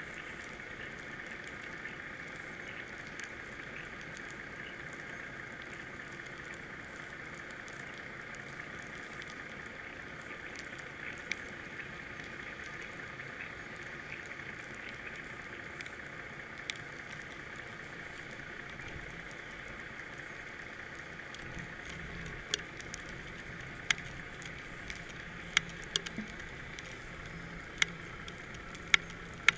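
Steady muffled hiss of a GoPro recording underwater inside its sealed housing, with scattered sharp clicks and ticks that come more often near the end.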